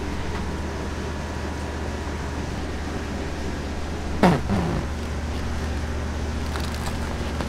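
Steady low mechanical hum, with a short squeak falling in pitch about four seconds in and a second, shorter one just after.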